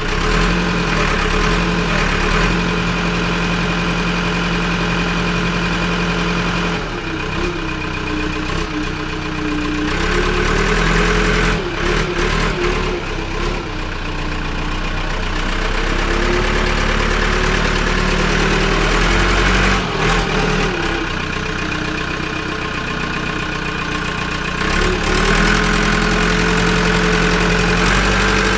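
Engine idling steadily, its speed dipping and rising several times.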